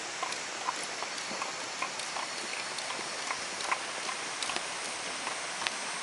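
Sharp, regular footsteps clacking on a paved path, about two and a half steps a second, over the steady rush of a mountain stream.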